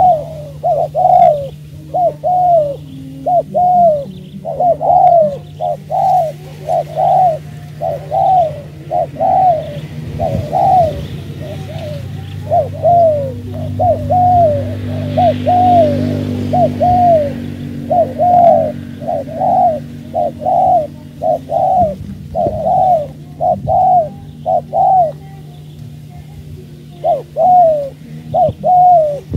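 Spotted doves cooing: a long run of loud, arched coo notes, about one to two a second, with a lull of a few seconds past the middle. A steady low hum lies underneath.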